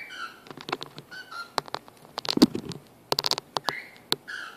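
Small pet bird making short soft chirps while sharp clicks and taps come from its beak and claws on the phone and shirt, with a dense run of clicks a little past three seconds in.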